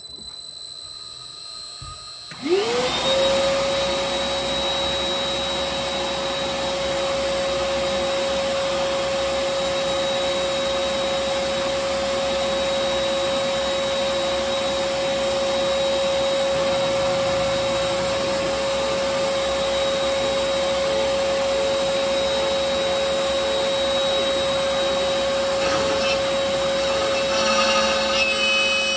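A dust-collection vacuum runs with a steady rush. About two seconds in, the CNC router's spindle spins up with a rising whine that settles into a steady high-pitched tone, ready to cut. The sound grows rougher near the end as the router head moves off.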